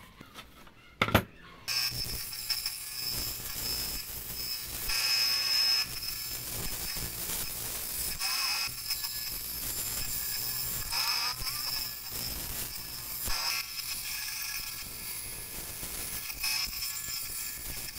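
A small band saw starts up and runs with a steady whine and hum, its blade cutting through a wooden board. A sharp click about a second in, just before it starts.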